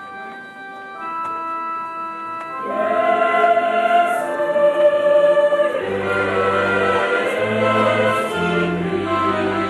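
Church choir singing with instrumental accompaniment: soft held chords at first, then the full choir swells louder about three seconds in, and low sustained bass notes join about halfway through.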